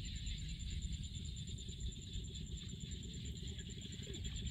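Outdoor ambience: a low rumble of wind on the microphone under a steady high-pitched, finely pulsing chirr of insects.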